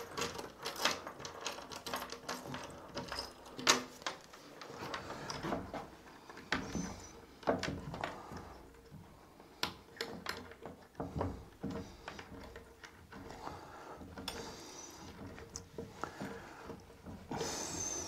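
Irregular clicks, taps and brief scrapes of a metal door latch part being worked into place by hand with pliers.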